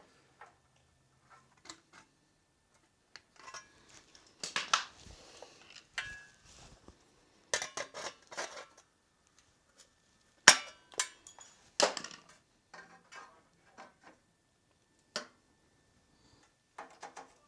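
Irregular sharp clicks and metallic clanks of hand tools and material being handled on a workbench, with a few louder knocks about ten and twelve seconds in and short stretches of rustling.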